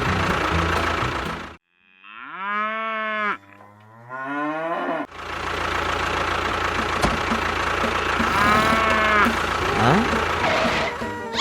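Mooing calls: a long rising-then-falling moo about two seconds in, followed at once by a lower falling one, and a shorter moo near the end, over a steady mechanical hum.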